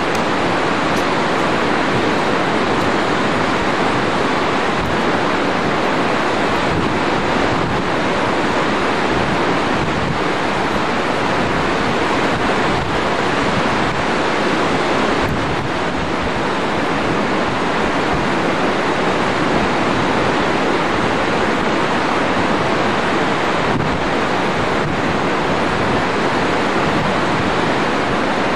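Steady rush of a fast mountain river tumbling over boulders beside the trail, mixed with wind buffeting the microphone.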